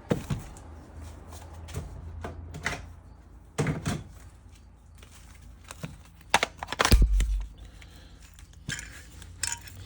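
Scattered clicks and knocks of tools and metal parts being handled on a workbench, with one heavier thud about seven seconds in, over a steady low hum.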